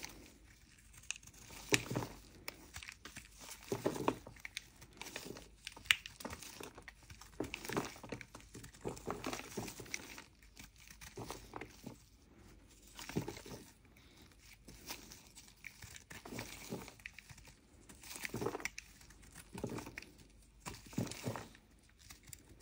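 Snap-off utility knife blade scraping the surface of a lump of mokka clay: a run of short, gritty scrapes at an uneven pace, with small bits of clay crumbling off.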